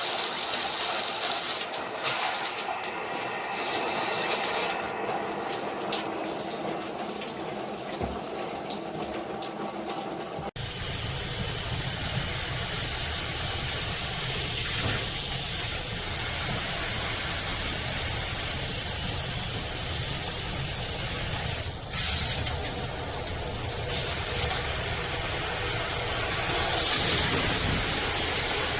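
Water spraying from a handheld shower head as a steady hiss; the sound changes abruptly about ten seconds in, becoming a fuller, deeper rush.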